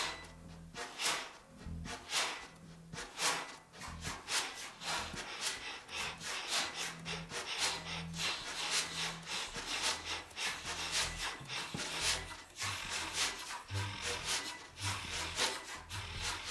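Free-improvised ensemble music built of noise: rasping, breath-like strokes about once a second at first, growing denser later, over low held tones.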